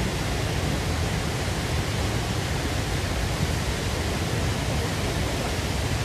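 Muradiye Waterfall, a broad, full-flowing waterfall, pouring over a rock ledge into its river: a steady, unbroken rush of falling water, heaviest in the low end.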